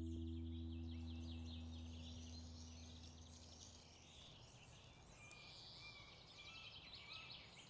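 A sustained distorted electric guitar chord dies away over the first few seconds, leaving faint high chirping of small birds.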